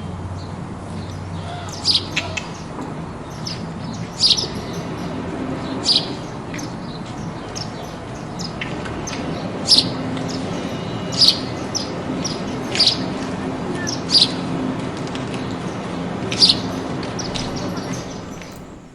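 Sparrows chirping in short, sharp, high chirps, the loudest coming every second or two, over a steady low hum.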